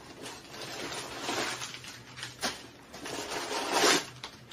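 Packing paper rustling and crinkling as it is pulled out of a new backpack, in irregular bursts with one sharp click about two and a half seconds in.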